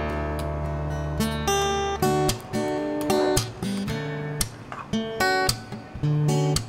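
Background music: acoustic guitar strumming chords and picking notes in a light, steady rhythm.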